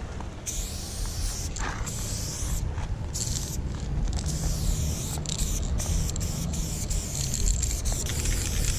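Aerosol spray-paint can hissing in many short bursts with brief gaps between them as red fill is sprayed onto a painted panel, over a steady low rumble.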